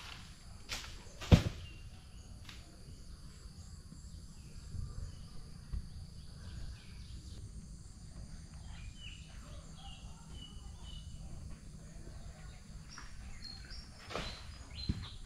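Outdoor ambience: a steady low rumble with faint, short high chirps, broken by one sharp knock about a second and a half in.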